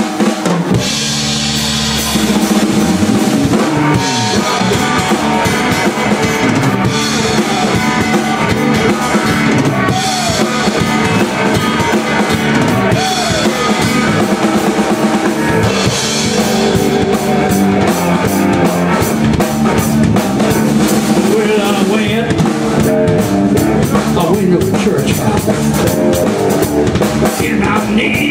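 Live rock band playing an instrumental blues-rock passage on drum kit, electric bass and electric guitar, with steady kick and snare drum strokes. A few guitar notes glide in pitch.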